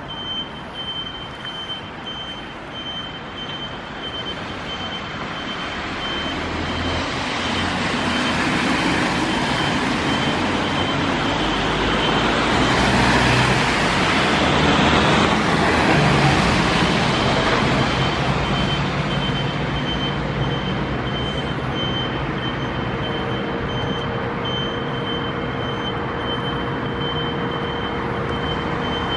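Renault fire engine's engine pulling out of the station bay, growing louder and loudest about halfway through. A high electronic beep repeats evenly throughout.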